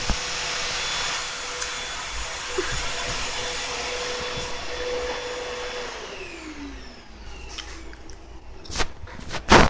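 Vacuum cleaner running steadily with a whine over its motor noise, then switched off about six seconds in, the whine falling in pitch as the motor spins down. A few sharp knocks near the end.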